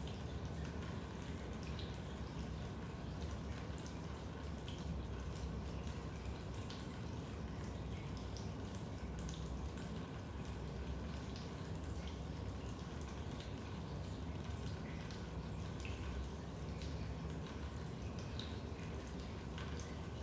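Raindrops dripping into a basement: scattered, irregular small drips over a steady low background rumble.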